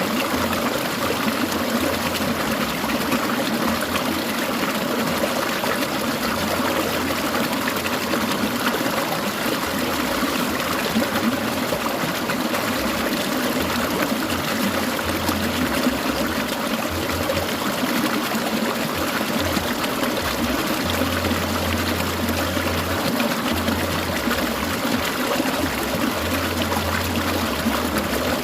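Clear mountain stream trickling and babbling steadily over rocks.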